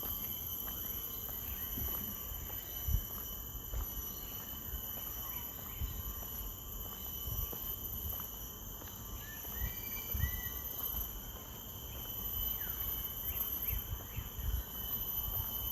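Tropical rainforest ambience: insects drone steadily in several high, unbroken tones. A few faint, short bird whistles come in near the middle and again later, over a low uneven rumble.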